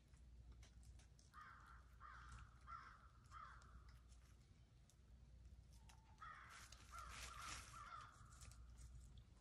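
Crow cawing faintly: four caws about two-thirds of a second apart, then a longer run of caws about six seconds in.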